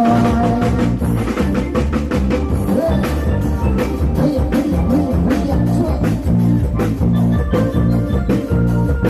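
Isan rock band playing live from a rot hae sound truck through its loudspeakers, with a heavy thudding bass line, a driving drum kit and electric guitar, picked up by the camera's own microphone.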